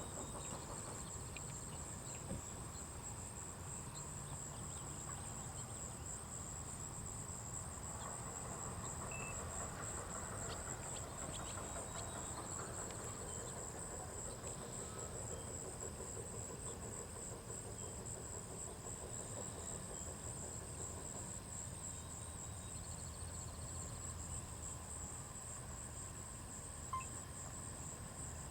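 Steady high-pitched insect chorus over a low background rumble, with one small click near the end.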